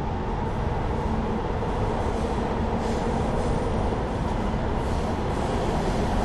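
Los Angeles Metro Rail train running: a steady rolling rumble of wheels on track, with a faint steady hum from the train underneath.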